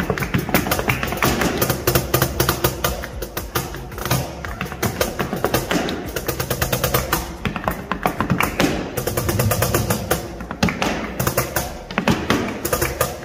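Live flamenco: a dancer's heeled shoes beat fast zapateado footwork on a portable wooden board, in rapid runs of sharp taps, over a cajón being slapped and a flamenco guitar.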